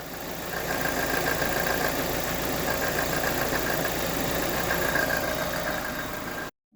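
Car engine idling with a fast, rhythmic ticking knock, the sound of a shifted exhaust camshaft; the ticking drops out for about a second early on, then returns. The sound cuts off abruptly near the end.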